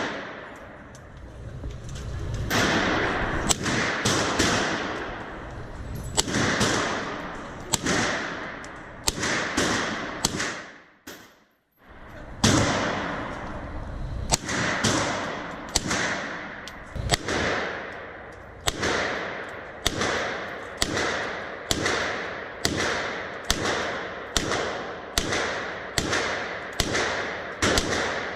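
Handgun shots fired one after another in an indoor shooting range, each followed by an echoing tail. The shots stop briefly about eleven seconds in, then resume at a steady pace of roughly one every 0.7 seconds.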